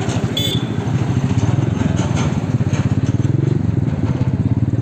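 Motorcycle engine running as the bike rides along, a steady rapid chugging whose pitch drifts up and down slightly.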